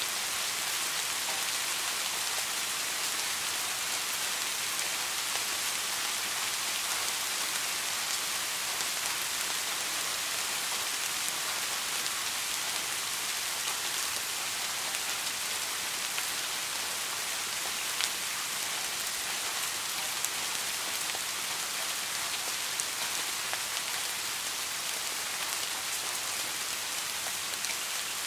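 Steady soft rain: an even hiss of falling rain with a few sharper drop ticks here and there.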